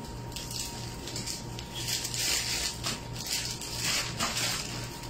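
Intermittent rustling and crinkling handling noise off-camera, in several short bursts over a faint steady hum.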